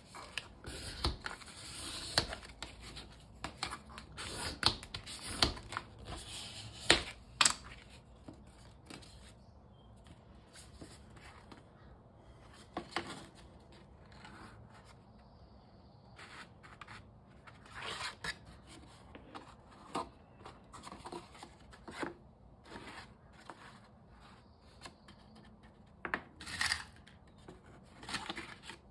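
Wooden creaser stick rubbed firmly along a folded paper plate to sharpen the crease: a quick run of scraping strokes over the first seven or eight seconds. After that, softer rustling and crinkling of the stiff paper as the plate is unfolded and handled.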